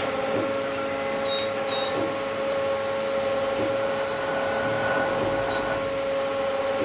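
CNC turning machine running: a steady whine with machine hum, and a soft swish repeating about every one and a half seconds.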